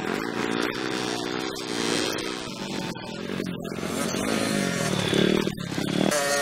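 Small motocross dirt bike's engine revving up and down as it is ridden around a dirt track. The pitch rises and falls over and over, dropping low about five seconds in before climbing again.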